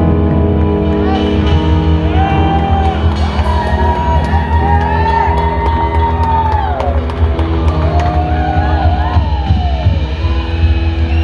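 Live blues-rock band playing: an electric slide guitar melody of long held notes that glide up and down in pitch, over steady bass and drums.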